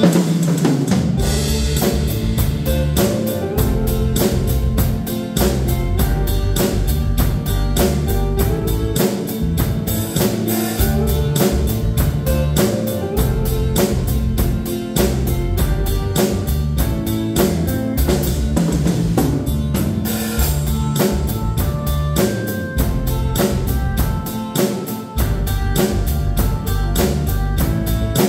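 Tama drum kit played in a steady beat of kick, snare and cymbal hits along with a recorded backing track with guitar; the drums come in right at the start over the guitar intro.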